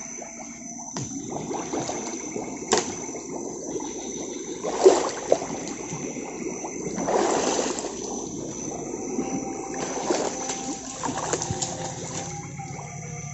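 Water splashing, sloshing and dripping as someone wades and handles a fish trap in the water, with louder splashes about five and seven seconds in.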